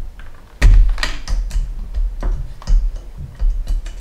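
Clicks, knocks and rubbing bumps from handling a plastic galaxy star projector as its USB cable is plugged in and the unit is moved, with heavy close bumps starting about half a second in.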